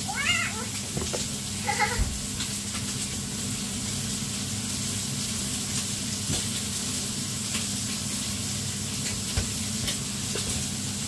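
Steady sizzling hiss from cooking on the stove, with a few faint knocks as cooked sticky rice is turned out of a woven bamboo steamer basket.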